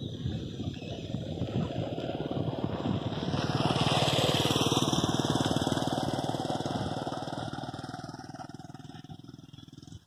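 A motor vehicle's engine passing by: it grows louder to its loudest about four seconds in, then fades away.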